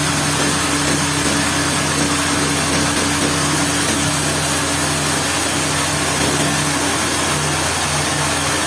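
Sawmill machinery running steadily: a constant motor hum over a broad hiss, with no break or change in level.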